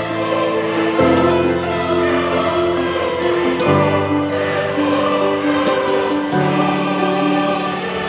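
Background music: slow, sustained chords sung by a choir, moving to a new chord about every two and a half seconds.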